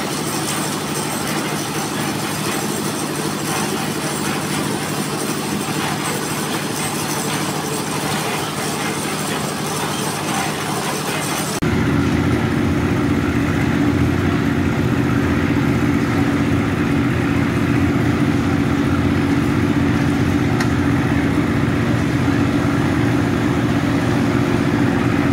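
Engine of a drum concrete mixer running steadily while concrete is mixed and poured. About halfway through it becomes louder, with a deeper steady hum.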